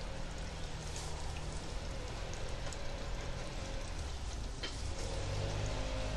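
Lawn-equipment engine running steadily, its hum growing louder about five seconds in, over a steady hiss with a few faint clicks.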